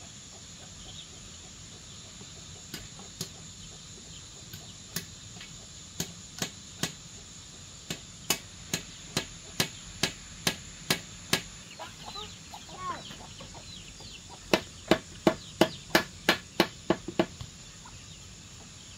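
A wooden mallet knocking on a bamboo frame to fit its joints: sharp knocks, scattered at first, then a steady run of two or three a second, a pause, and a quicker run of about three a second near the end. Chickens cluck in the pause.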